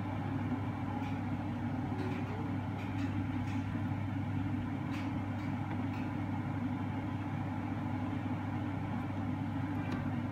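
Steady low mechanical hum of a kitchen appliance running, with a few faint light clicks scattered through it.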